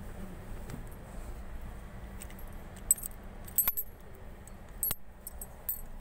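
Light metallic jingling and clinking in a few short bursts from about halfway through, over a low steady hum.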